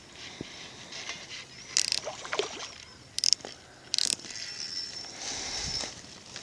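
Spinning reel sounding in three short bursts about two, three and four seconds in, while a hooked carp is fought on light line.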